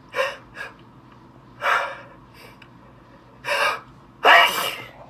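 A man sneezing. Short breathy gasps come every couple of seconds, building up, and the loudest, longest burst comes near the end.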